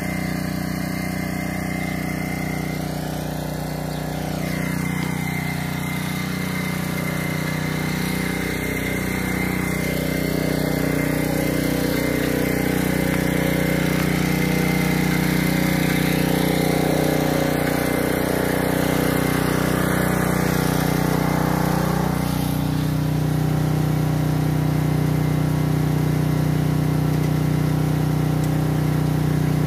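An engine running steadily without a break, its note shifting slightly about two-thirds of the way through.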